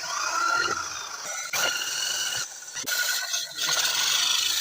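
A drill-driven sanding disc grinding a knife blade: a hissing scrape with a high whine running through it, broken off briefly a few times between strokes.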